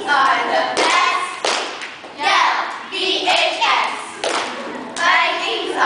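Young girls shouting a cheer together, with sharp claps or thumps between the lines, about one a second.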